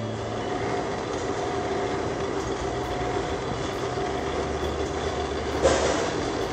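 Newlong paper-sack bottoming machine running, with a steady mechanical clatter and hum from its rollers and belts. A low hum drops out with a sharp clack near the end.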